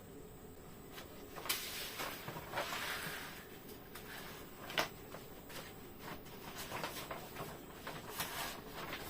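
Unpacking by hand: rustling of packaging and items being handled, with scattered clicks and knocks, the sharpest about a second and a half in and again near five seconds.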